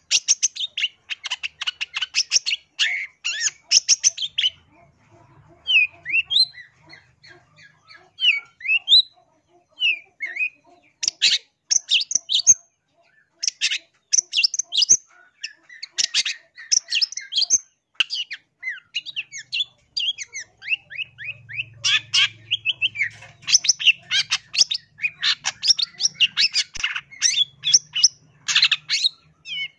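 Long-tailed shrike (cendet) singing in bursts of rapid, harsh chattering notes. A quieter stretch of short whistled slides comes about a quarter of the way through, between the chattering bursts.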